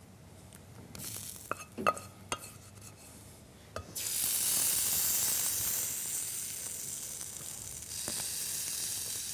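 A few light clicks of a wooden spatula in a frying pan, then about four seconds in a sudden sizzle as food from a steel pot goes into the pan, hot over a strong gas flame, and is stirred; the sizzle carries on, a little softer near the end.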